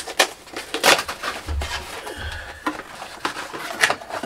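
Hands handling film disc cases and cardboard packaging: an irregular string of clicks, taps and rustles, with a couple of dull thumps about halfway through.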